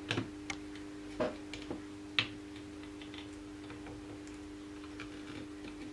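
Scattered light clicks and taps from handling a cordless drill's plastic parts, the loudest about two seconds in, over a steady low hum.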